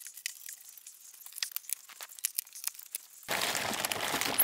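Plastic packing strap and cardboard being handled, with quick crinkles and sharp crackles. About three seconds in, a louder, fuller rustling of cardboard and plastic wrapping sets in as the box is opened and the bagged contents are handled.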